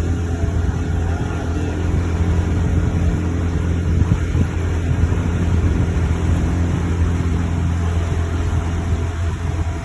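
Boat engine running steadily, a low drone that holds even.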